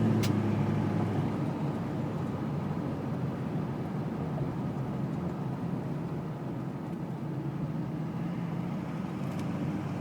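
LLY Duramax 6.6-litre V8 turbodiesel running steadily, settling down to idle from a louder passage just before. The owner describes this idle as rough, with fuel knock, and reports white smoke. A single sharp click sounds right at the start.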